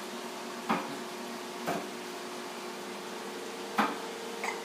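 A plastic spoon clicking against a plastic feeding cup three times, over a steady hum.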